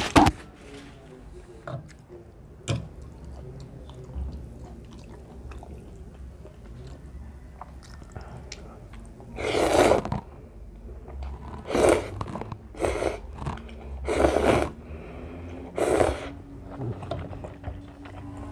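A person chewing and slurping instant ramen noodles: quiet chewing, then about nine seconds in a run of five loud slurps, one every second or two.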